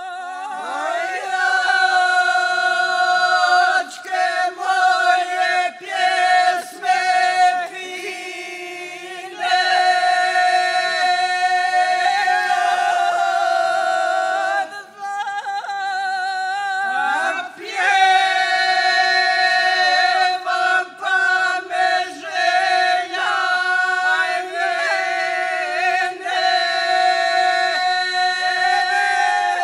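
Mixed group of men and women singing a traditional Serbian folk song (zavičajna pjesma) unaccompanied, in long held notes broken by short pauses for breath.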